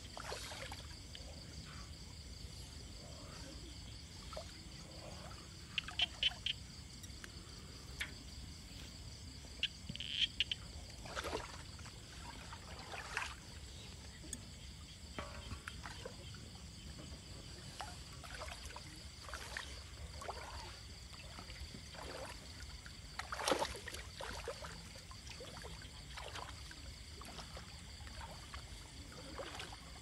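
A steady high-pitched chorus of night insects, with short irregular splashes and knocks of water and a large basin handled in a shallow river. The loudest splash comes a little over two thirds of the way in.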